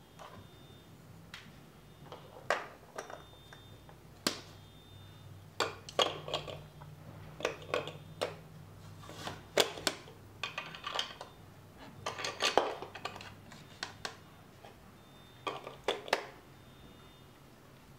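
Plastic LEGO Duplo bricks clacking and knocking as a small child handles them and presses them together, in irregular clicks with a busier stretch about two thirds of the way through.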